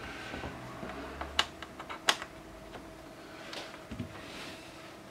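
Light clicks and taps of hands handling a laptop's plastic case, with two sharper clicks about a second and a half and two seconds in, and a few fainter taps later.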